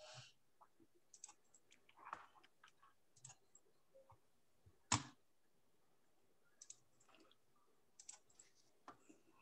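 Faint, scattered clicks of a computer mouse and keyboard being worked, with one louder click about five seconds in.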